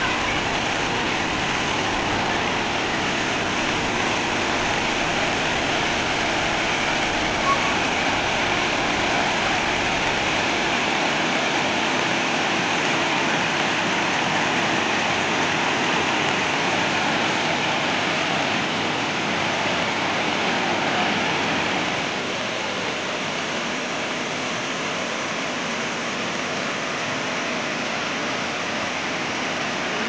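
Steady rush of a waterfall cascading over rock slabs, dropping a little in level about two-thirds of the way through.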